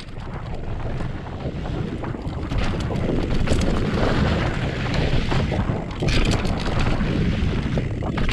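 Wind buffeting the microphone: a rough, steady rushing noise heavy in the low end, with scattered sharp crackles, growing louder over the first few seconds.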